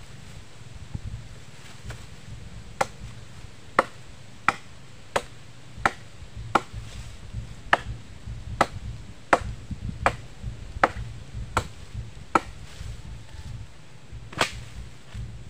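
Machete chopping into a fallen tree branch: a steady run of sharp strikes, about three every two seconds, more than a dozen in a row, then a pause and one last blow near the end. A low rumble sits underneath.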